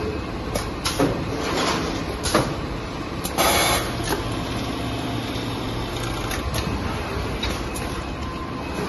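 Automatic pillowcase sewing machine line running: a steady mechanical clatter with scattered sharp clicks and knocks from its moving parts, and a short hiss about three and a half seconds in.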